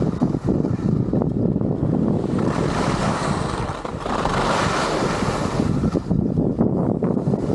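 Wind buffeting the action camera's microphone during a downhill ski run, with the skis hissing and scraping over the snow. The hiss swells twice, about three and about five seconds in.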